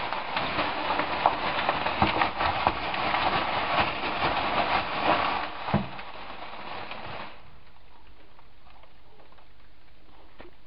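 A thin green plastic bag being crumpled and rustled by hand, crackling densely for about seven seconds, then stopping and leaving a faint steady hiss.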